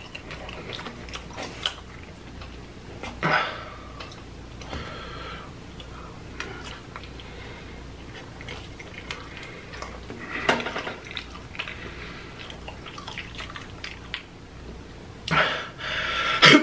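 Wet, close-up chewing and lip-smacking of stringy, cheesy deep-dish pizza: many small sticky clicks and squelches, with a few louder moments about 3 and 10 seconds in and near the end.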